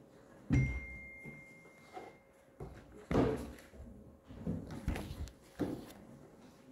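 A few dull thumps and knocks, the first followed by a brief high ring.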